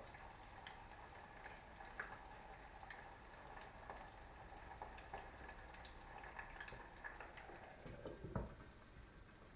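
Breaded chicken frying in hot oil: faint sizzling with scattered small pops and crackles. A soft knock about eight seconds in.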